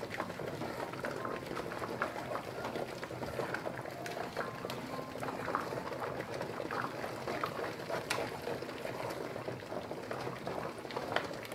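A spoon stirring thick melted soap in a metal pot, with small scattered clicks of the spoon, over the water bath bubbling steadily beneath the pot.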